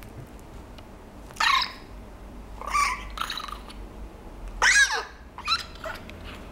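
Papillon–Shih Tzu mix puppy giving about four short, high-pitched whimpering cries, the loudest near the middle sliding down in pitch.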